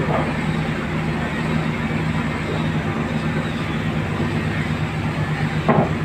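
Nissan RF10 V10 diesel engine in a new skipjack-tuna fishing boat, running steadily under way on its trial run. A brief knock comes near the end.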